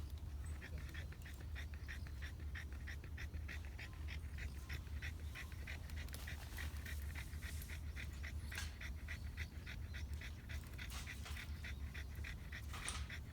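A dog panting rapidly, about four breaths a second, over a steady low hum.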